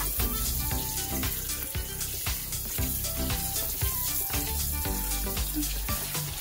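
Kitchen sink sprayer running a steady hissing stream of water into a pot of raw chicken pieces being rinsed by hand. Background music with a steady beat plays over it.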